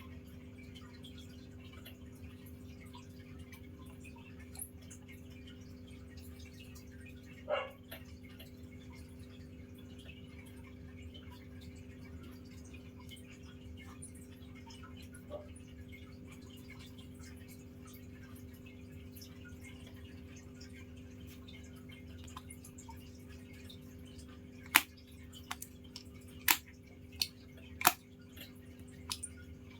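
Steady low hum of room noise, broken by a few sharp clicks: one alone early on, then a quick cluster of five or six near the end.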